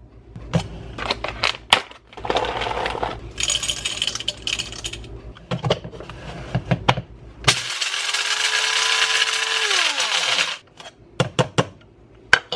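Clicks and rattling, then an electric blade coffee grinder runs steadily for about three seconds and winds down, its motor's pitch falling as it stops. A few more clicks follow near the end.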